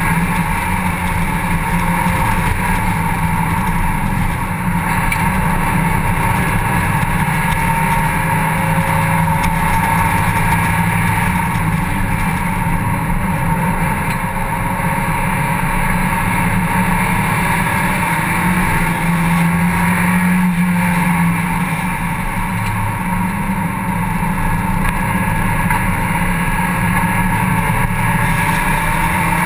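Mazda MX-5 Cup race car's four-cylinder engine running hard at racing speed, a steady loud drone heard from inside the open-top cockpit.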